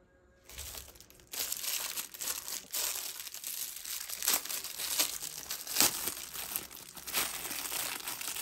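Clear plastic packaging crinkling and crackling as it is handled, with many sharp crackles. It starts about half a second in and gets louder just over a second in.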